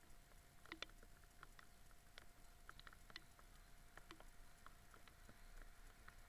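Faint raindrops tapping irregularly, a few light ticks a second.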